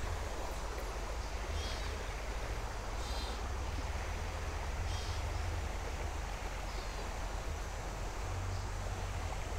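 Shallow creek water running over a rocky bed, a steady rushing hiss, with a low rumble underneath.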